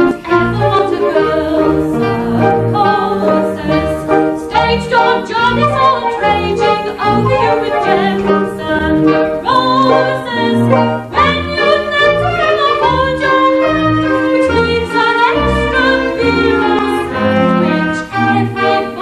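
A musical-theatre song: a woman singing with a small pit orchestra accompanying, the orchestra loud in an old home-camcorder recording.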